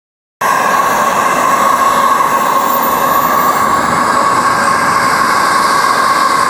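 JetCat P-120 SE model gas turbine in an RC F-5E Tiger II jet, running steadily on the ground: a strong steady whine over a loud rushing noise, cutting in abruptly just under half a second in.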